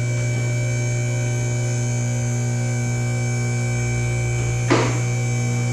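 Two-post car lift's electric hydraulic pump motor running with a steady hum while it raises a car. A brief noise cuts in near the end.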